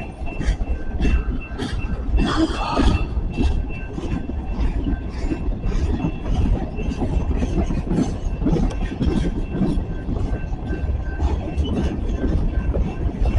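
Freight train cars rolling past, wheels clacking over rail joints, with a faint high wheel squeal.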